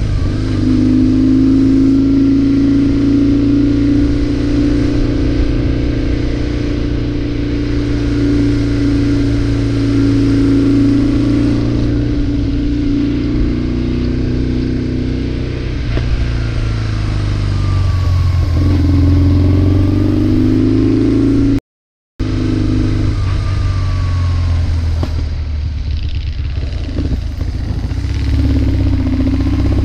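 Motorcycle engine running steadily under way, heard from on the bike with wind and road noise, the revs dropping and picking up again about two-thirds of the way through. The sound cuts out completely for a moment a little past the middle.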